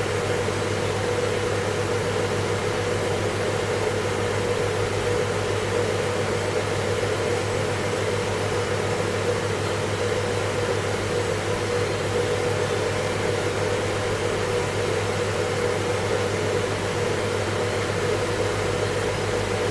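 Steady background hum and hiss, an unchanging drone with a low hum and a higher hum under an even hiss.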